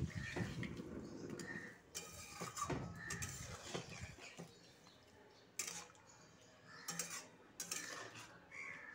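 A metal spatula stirring prawn curry in an aluminium kadai: sloshing of the thin gravy with scrapes and clinks of metal on the pan, loudest in the first second.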